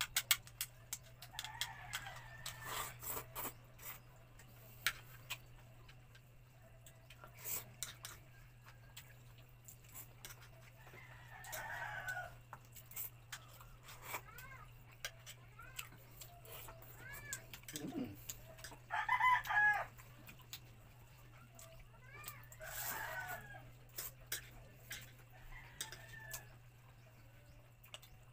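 A rooster crowing about four times, spread through the stretch and loudest in the second half, with smaller chicken calls in between. Light clicks and taps of chopsticks against a bowl as someone eats.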